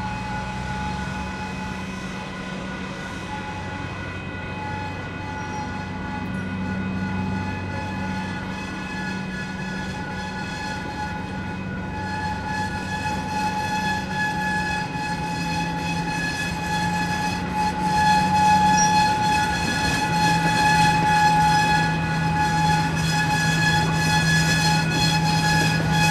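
Diesel-hauled freight train at a grade crossing: a low engine hum under a steady high pitched warning tone that grows louder from about halfway through. A few clicks near the end fit wheels passing over the crossing.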